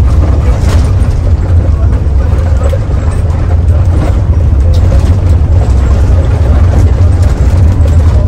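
Mercedes-Benz OH 1521 bus on the move, its diesel engine and running gear making a loud, steady low rumble.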